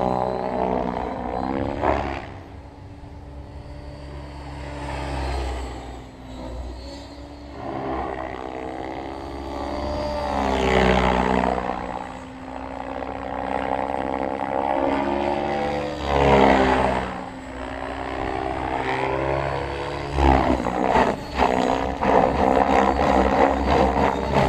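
Thunder Tiger Raptor E700 electric RC helicopter in flight: the steady whine of its Scorpion motor and rotor blades grows louder and fainter as it flies around, with the pitch bending up and down on the passes. It is loudest in swells about 11 and 16 seconds in and again from about 20 seconds.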